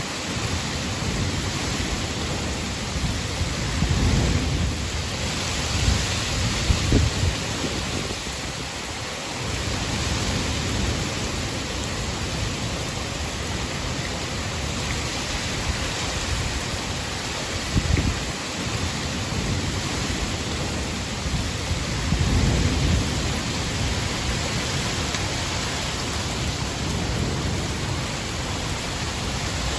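Thunderstorm: steady heavy rain hiss with low rolls of thunder, rumbling about four to seven seconds in, briefly at about eighteen seconds, and again around twenty-two seconds.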